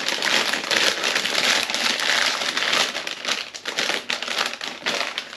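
Potato-chip bag crinkling and crackling continuously as it is handled and opened, dying down near the end.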